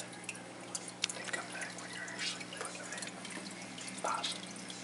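Hang-on-back aquarium filter running: water trickling and dripping from its outflow into the tank, with scattered small splashes over a steady low hum.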